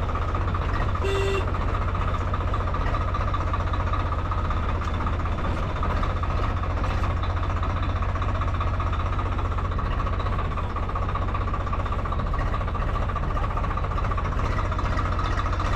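Swaraj 855 tractor's three-cylinder diesel engine running steadily as the tractor drives along, heard from the driver's seat. A short beep sounds about a second in.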